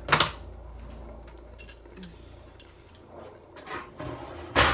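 Kitchen utensils clattering as metal tongs are handled: a sharp clatter just as it begins, a few light clicks, and a louder clatter near the end. A low hum runs under the first few seconds and then stops.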